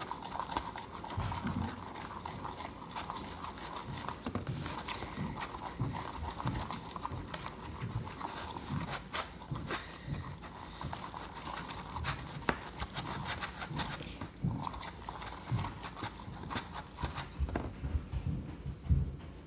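Hand stirring of a glue, foam soap and liquid detergent slime mixture in a container, giving irregular clicks and knocks of the utensil against the container throughout.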